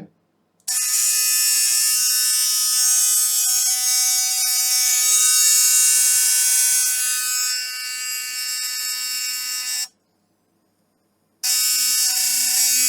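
Philips Sonicare DiamondClean sonic toothbrush running with a loud, steady high buzz. It stops suddenly after about nine seconds and starts again a second and a half later.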